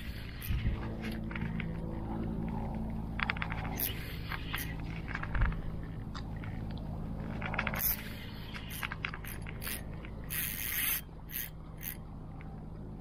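Irregular scraping and clicking, with a few short hissing bursts, the longest about ten seconds in, over a low steady hum.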